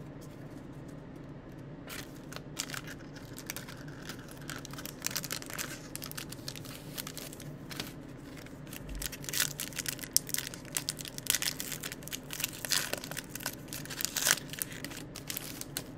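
Foil trading-card pack wrapper crinkling and tearing as it is handled and ripped open, in many short crackles that grow busier in the second half, over a steady low hum.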